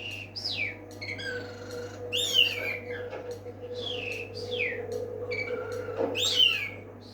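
Pet bird calling with repeated high whistles that fall in pitch, often in pairs, mixed with airy, hissy sounds: the call its owner calls a snore.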